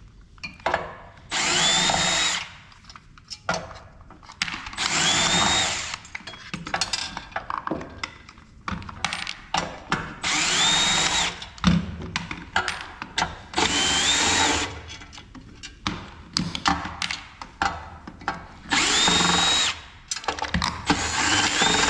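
Electric drill-driver running in short bursts, six times, each about a second long with a whine that rises quickly in pitch and then holds, as screws are driven out of the printer's casing. Small clicks and rattles of handled parts and screws come between the bursts.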